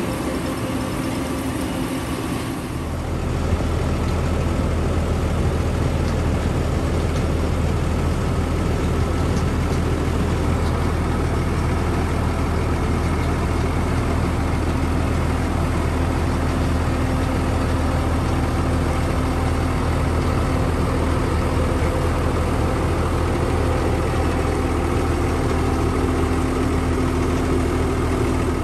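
Heavy farm-machinery diesel engine running steadily, with a deep hum that sets in about three seconds in and holds even throughout.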